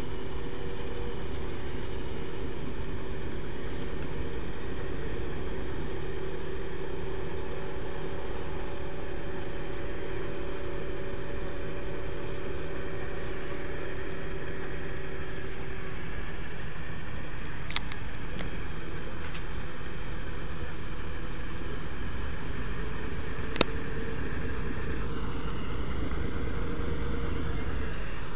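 The engines of the river ferry SP-28 run in a steady drone as it comes in towards the bank. A steady hum within the drone stops about halfway through, and there is a brief sharp click about two-thirds of the way in.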